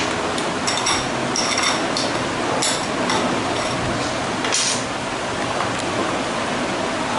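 A metal utensil scraping and clinking against a glass bowl while thick chocolate khoya dough is scraped out, with a few sharp ringing clinks in the first five seconds. A steady hiss runs underneath.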